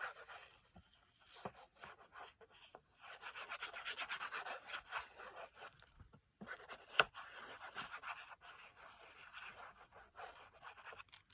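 Quick back-and-forth rubbing on card stock in two spells, with a sharp tap about seven seconds in.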